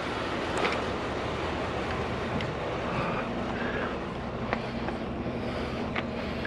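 A vehicle engine running steadily as a low hum, with a few light clicks and knocks over it.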